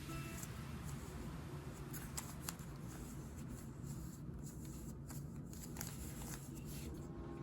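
Rubik's cube being turned by hand: faint, scattered clicks of its layers turning.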